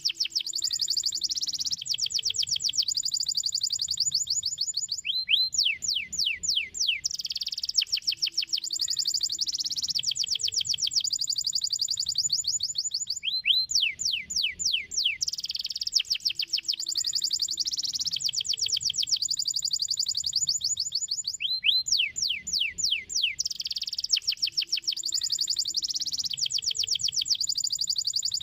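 Domestic canary singing a long, continuous song of rapid high trills, broken about every eight seconds by a short run of quick downward-sweeping notes.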